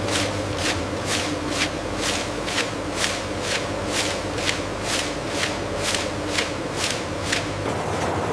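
Snack-factory processing machinery running with a steady hum, and a regular swishing stroke about twice a second; the strokes stop shortly before the end.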